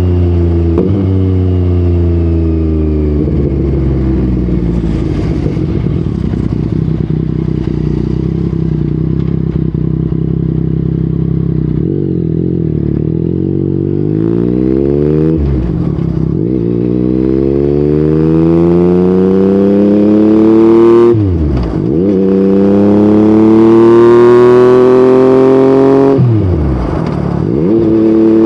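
Yamaha MT-09's three-cylinder CP3 engine through an Akrapovic exhaust, first running at low revs. In the second half it accelerates, its note rising and dropping sharply at about three upshifts.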